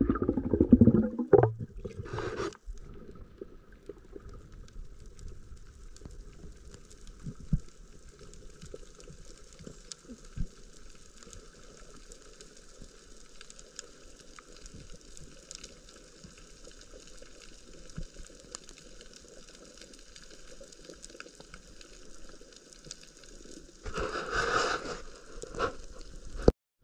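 Faint steady watery hiss and crackle with scattered sharp clicks. Louder rushing bursts come in the first couple of seconds and again about 24 seconds in.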